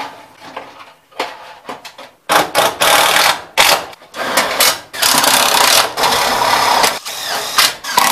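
Cordless drill driving screws into the wooden roof framing, a motor whir that runs in several short bursts with brief pauses, starting a little over two seconds in. Before that, light clicks and knocks of parts being handled.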